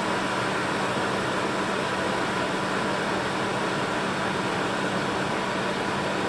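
Spicy tteokbokki broth boiling hard in a wide pan, a steady bubbling hiss with a constant hum underneath.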